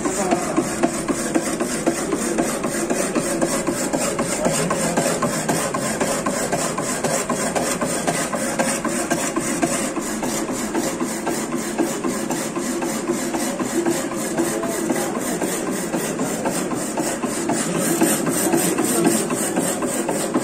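Power hacksaw machine running, its blade sawing through a flat metal workpiece: a steady rasping with an even clatter of about three to four knocks a second.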